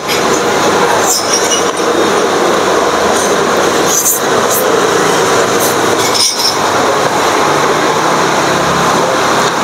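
Steady loud rushing background noise throughout, with a few brief sharp sounds of eating noodles with chopsticks, the clearest about four seconds in as a mouthful of noodles is taken.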